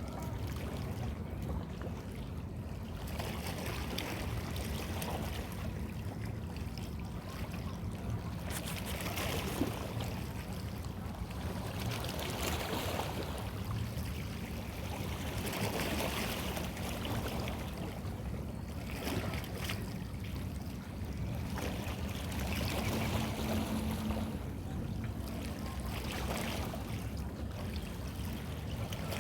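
Waterside ambience: water washing and wind noise that swell and ease every few seconds, over a steady low drone.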